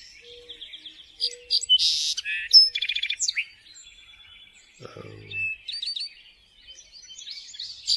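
Songbird singing: quick high chirps, trills and short whistles, loudest about two seconds in.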